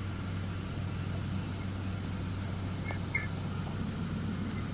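Car engine idling, a steady low hum heard from inside the cabin, with a brief click about three seconds in.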